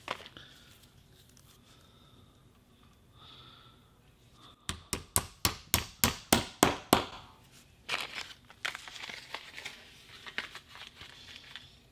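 Hammer driving a white nail-on chair glide into the end of a wooden chair leg: a quick run of about a dozen taps, about five a second, growing louder, until the glide sits flush.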